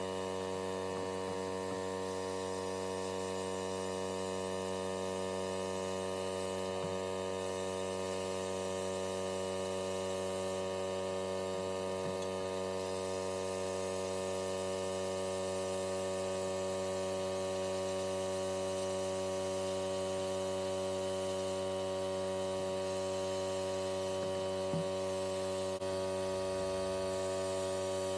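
Electric motor running steadily, a constant hum made of many steady tones, with one faint click near the end.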